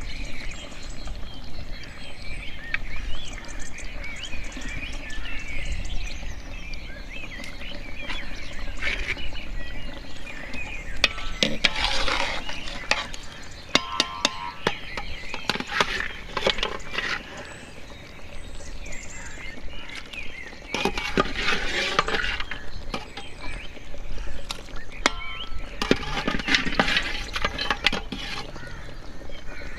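Metal cooking pot and utensils clinking and scraping as the beef is set to boil, with birds chirping in the background.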